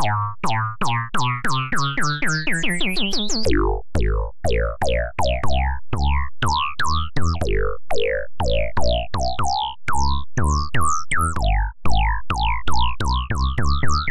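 Oscilloscope music: electronic synthesizer music made to draw pictures on an oscilloscope. It has a steady pulse of about three strokes a second, each a quick falling zap in the treble, over a stepping bass line.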